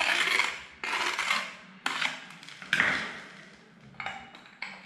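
Tiling work on a hard floor: four short scraping strokes about a second apart, then a few light clicks and clinks near the end.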